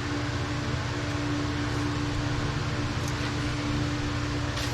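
A steady machine hum with one constant tone, and a couple of faint clicks.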